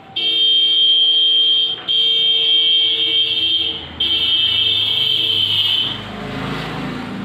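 A loud, steady horn tone sounds three times, each blast about two seconds long with only brief gaps between them, followed by a quieter low rumble near the end.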